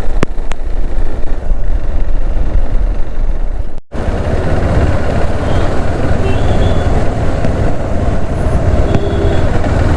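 Wind noise and motorcycle road noise from a riding moto-vlog microphone, with the GoPro's wind-noise reduction switched off, plus traffic around. The sound cuts out sharply for an instant about four seconds in, then resumes fuller.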